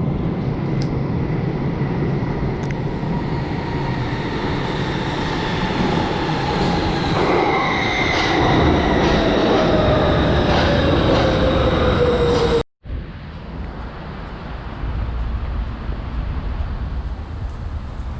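Steady mechanical rumble with a whine that slowly falls in pitch, cut off abruptly about twelve seconds in, followed by a quieter steady rumble.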